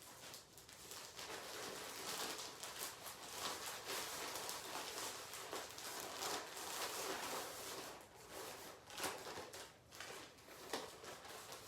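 Plastic packaging bags rustling and crinkling in irregular short bursts as clothing items are handled and unpacked.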